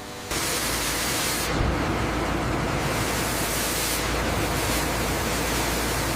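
Steady loud hiss of wood-processing machinery, cutting in abruptly just after the start.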